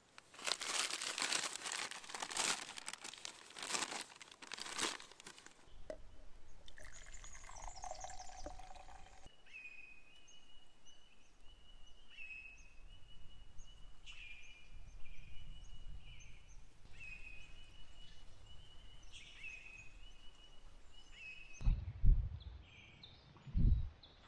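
Paper rustling and crinkling for about five seconds as a paper napkin around a pastry is handled. After that a bird repeats a short high call about once a second, and near the end there are two dull thumps.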